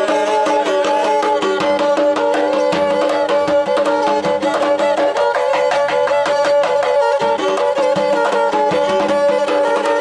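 Small bowed folk fiddle playing a quick melody over steady held notes, accompanied by regular beats on a large davul bass drum.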